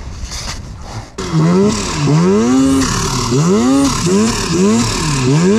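Snowmobile engine comes in loud about a second in and revs up and down in repeated pulls, about once a second, as the sled is throttled to break free from deep snow where it is stuck.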